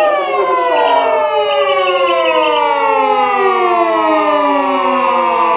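A siren winding down, its loud wail falling slowly and steadily in pitch.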